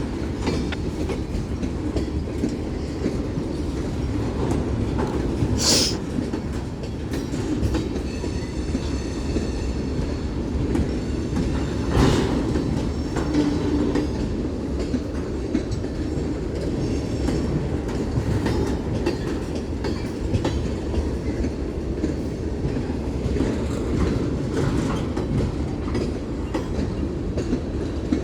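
Union Pacific manifest freight train cars rolling past at speed: a steady rumble with the clickety-clack of wheels over rail joints. A brief high squeal about six seconds in and a sharp knock about twelve seconds in stand out.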